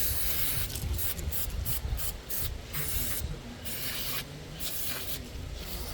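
Aerosol can of carburetor cleaner spraying onto the chainsaw's sprocket area to blast off grime: a hiss held for about the first second, then repeated short bursts.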